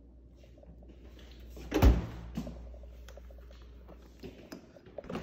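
Stainless French-door refrigerator being shut: one loud thud about two seconds in, a lighter click just after, and a few small knocks near the end.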